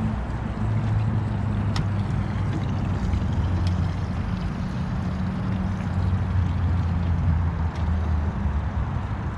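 Yamaha outboard motor running at idle in gear as a small skiff moves slowly off, a steady low hum.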